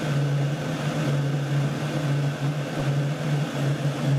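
Chinese diesel air heater running, with a steady low hum that pulses about twice a second over a rushing noise, and a faint steady whistle from its exhaust.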